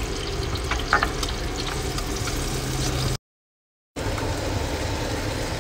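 Food frying in a nonstick pan over a gas flame: chopped tomatoes, then tofu pieces, in a steady sizzle, with a couple of light clicks about a second in. The sound cuts out completely for under a second just after three seconds in, then the frying resumes.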